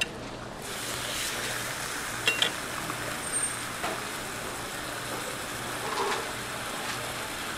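Raw bacon sizzling on a hot flat-top steel griddle, the hiss swelling as the strip goes down about half a second in. A couple of sharp metal clinks sound about two seconds in, with a steady low hum underneath.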